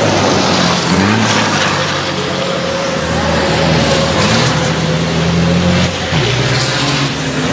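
Racing trucks' big diesel engines running hard on track, the engine note rising about a second in and changing again about six seconds in, with a few short bursts of hiss.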